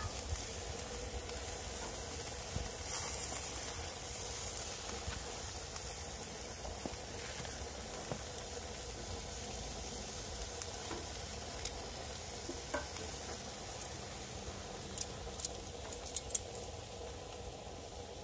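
Ribs sizzling on the grate of a charcoal grill, a steady hiss, with a few sharp clicks near the end.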